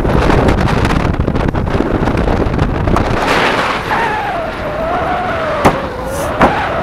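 Wind buffeting a microphone on the roof of a moving vehicle, over a low rumble of the vehicle driving on a rough track. From about four seconds in a thin wavering tone rises and falls, and two sharp knocks come near the end.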